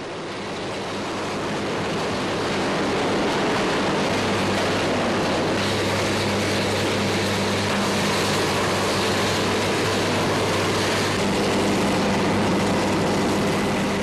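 Steady, loud roaring noise of an AC electric arc furnace in a steel melt shop, building over the first couple of seconds, with a low steady hum that strengthens about four seconds in.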